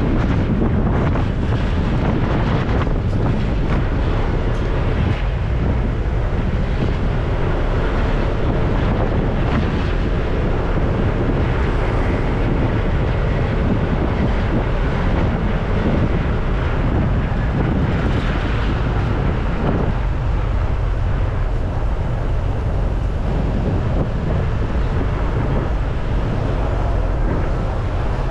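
Steady wind rush buffeting the microphone of a moving scooter, with the Honda PCX 150 scooter's engine and road noise running underneath.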